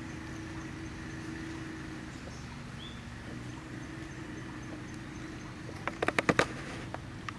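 Outdoor background with a steady low hum and a faint high steady tone. Near the end comes a quick run of about eight sharp clicks or knocks within half a second.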